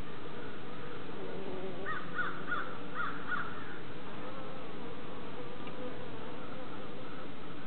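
Honeybee colony in an observation hive, humming steadily. About two seconds in comes a brief run of a handful of short chirps.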